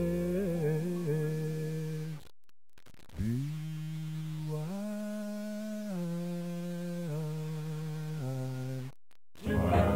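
A man humming a slow melody in long, steady held notes, with a short gap about two seconds in and another near the end.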